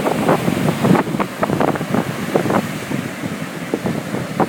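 Wind buffeting the microphone in uneven gusts over the wash of small waves breaking on the shore.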